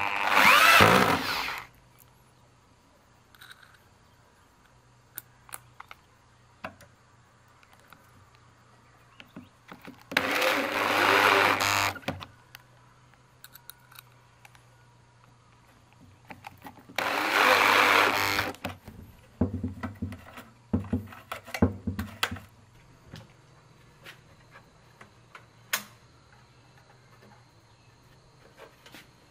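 Electric drill driving screws through a metal door hinge into a wooden frame, in three bursts of one to two seconds each, with a run of light knocks and clicks after the third.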